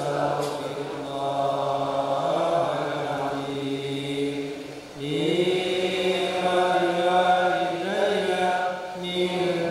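Men chanting Sufi dhikr in long, drawn-out phrases. Two held phrases of about five seconds each, with a short breath between them about five seconds in.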